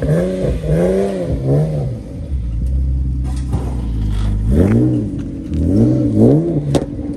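Infiniti G37's 3.7-litre V6 with aftermarket headers and exhaust, revved in quick throttle blips while standing, about five in all, falling back to a low idle between the first and last groups.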